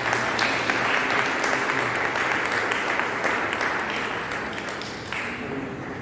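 A roomful of people applauding, a dense patter of many hands that ends about five seconds in.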